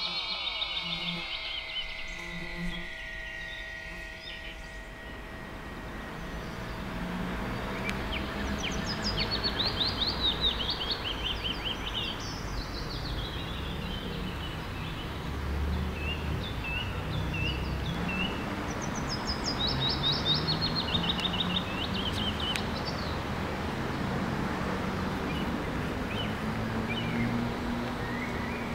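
Songbirds singing outdoors, repeated high chirping trill phrases over a steady background hiss and low rumble. At the start a synthesized title tone glides down and fades out.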